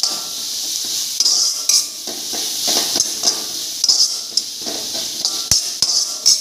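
Onion, garlic and green chillies frying in butter in a pan, sizzling, while a stirring utensil scrapes and clinks against the pan in quick irregular strokes. Two sharp knocks on the pan a little before the end.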